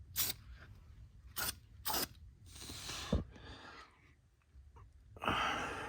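Aerosol spray paint can spraying in short hissing bursts, one about halfway through and a louder one near the end, with a few sharp clicks before them.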